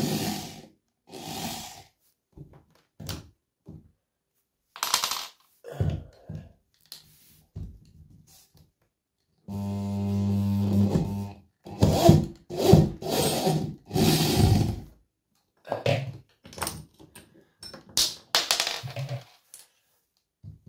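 Cordless drill-driver working a screw out in short starts and stops, with one steady run of about a second and a half about halfway through, amid clicks and rattles of the bit on the screw head. The screw head is stripped.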